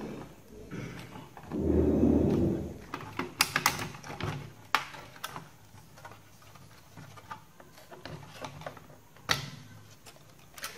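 Plastic laptop case being handled and pried open: a rough scraping shuffle about two seconds in, then scattered sharp clicks as the Toshiba laptop's plastic palmrest clips are popped loose with a pry tool.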